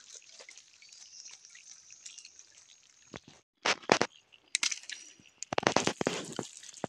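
Water dripping and trickling off a collapsible net fish-and-crab trap just lifted out of a stream. About three and a half seconds in come a few sharp knocks, then a denser rustling as the trap is handled on the ground.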